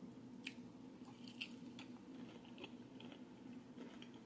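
Faint chewing of a mouthful of cucumber salad, with a few soft, short clicks spread through it over a low steady hum.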